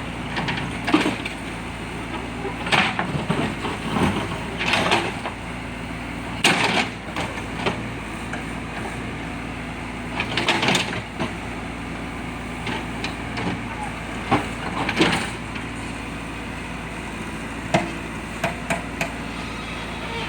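JCB backhoe loader's diesel engine running steadily, with irregular knocks, clanks and crackles of the bucket digging and dumping earth scattered through.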